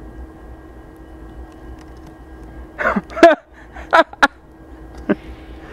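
A few short, loud vocal shouts, the loudest about three seconds in and three shorter ones over the next two seconds, over a faint steady hum.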